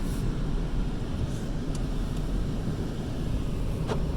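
Steady low rumble of a car driving, heard from inside the cabin, with a single short click near the end.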